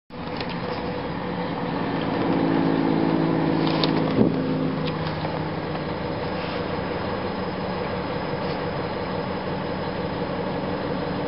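2004 Gillig Phantom transit bus running, its Cummins ISM diesel engine and Voith automatic transmission making a steady drone. A howl with a few steady tones comes in about two seconds in and fades about five seconds in, with a short knock near the middle.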